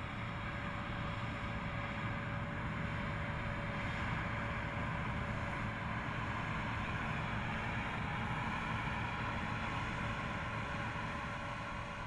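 John Deere T560 combine harvester running while cutting and threshing wheat: a steady machine drone from its 6.8-litre turbocharged diesel and threshing gear, with a thin whine held on one pitch.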